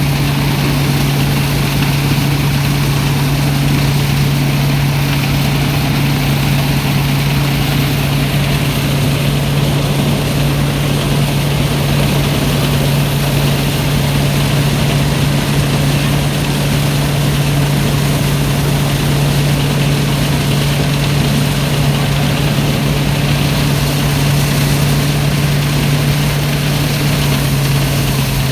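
Rice threshing machine running steadily, its engine giving a loud, even low hum with no breaks.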